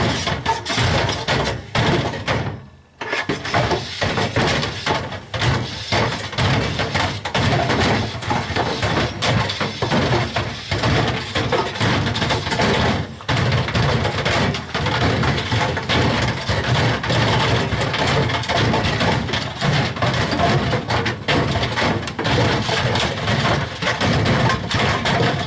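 White Knight tumble dryer running with a hammer tumbling in its drum: a steady motor hum under constant, irregular clattering and banging. The noise drops briefly about three seconds in and again about thirteen seconds in.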